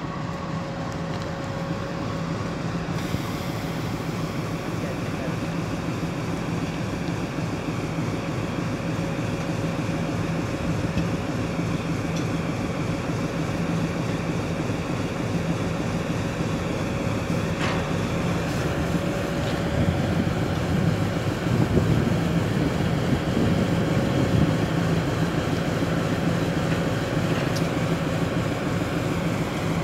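WDM-3A diesel locomotive's 16-cylinder ALCO engine running at low power as the locomotive creeps toward a wagon to couple: a steady engine drone with a thin steady whine above it. It grows louder about two-thirds of the way through.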